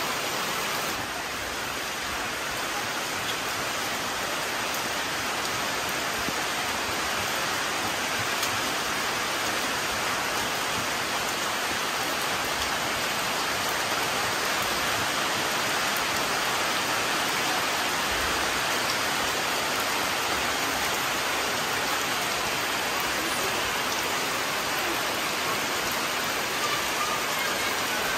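Steady rain falling on leaves and wet ground, an even hiss that holds level throughout.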